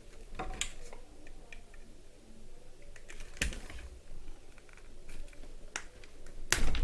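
Scattered small clicks and taps of a cutter knife working the insulation off thin headphone-cable wires, with a louder knock about halfway through and another near the end.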